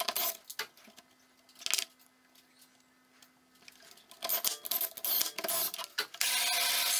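Small wooden blocks clicking and knocking as they are set into a plywood template jig on a bandsaw table, in scattered taps with a quiet gap in the middle. About six seconds in, the bandsaw's steady running noise cuts in abruptly.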